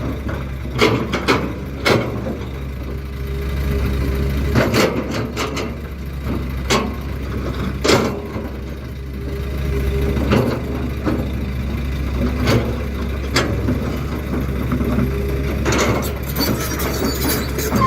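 Heavy diesel machinery running steadily at work, with repeated sharp metallic knocks and clanks at irregular intervals.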